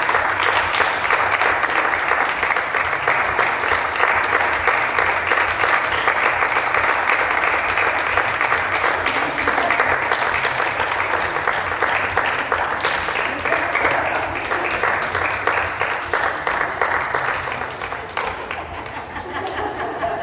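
Audience applauding, a dense and steady clapping that thins out and drops a little near the end.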